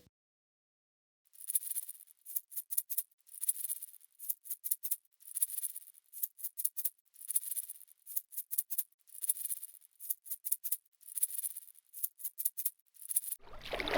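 Dry rattling, shaken in a steady repeating rhythm: a short cluster of quick shakes about once a second.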